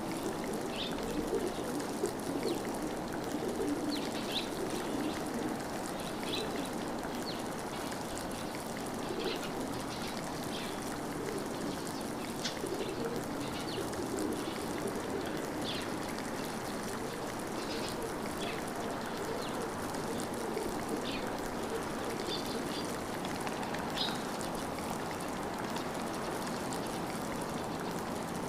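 Steady running water of a stream, with short, high bird chirps every second or two.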